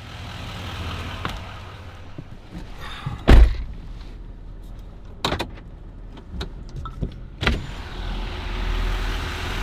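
Vehicle heard from inside the cab: a steady low engine and road rumble with a few sharp knocks, the loudest a heavy thump about three and a half seconds in. The rumble grows louder near the end.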